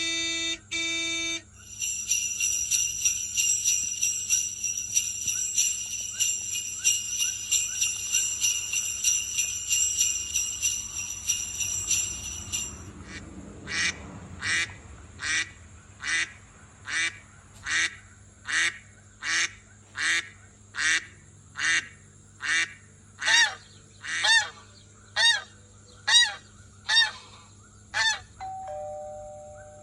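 Odd sound effects played back: a fast, high jingling buzz for about ten seconds, then a long run of separate honk-like calls, each a quick sweep in pitch, coming a little more than once a second and growing louder toward the end.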